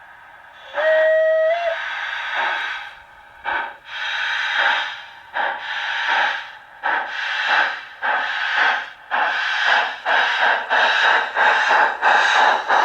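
LGB G-gauge Zillertalbahn model locomotive's sound module playing a steam locomotive pulling away: one short whistle, then steam chuffs that start slow and quicken steadily, from about one a second to about three a second.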